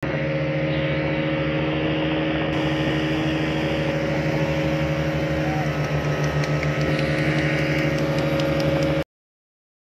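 Small fishing boat's engine running at a steady speed, an even drone, which cuts off suddenly about nine seconds in.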